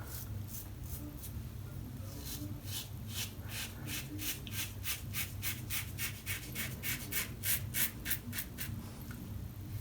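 Karve CB safety razor scraping through lathered stubble in short, quick strokes, about four a second. The strokes start about two seconds in and stop near the end.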